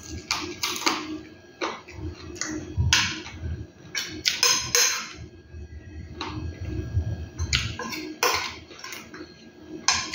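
Fried chicken being eaten close to the microphone: irregular bites and chewing, with a few short clicks of a spoon against the plate.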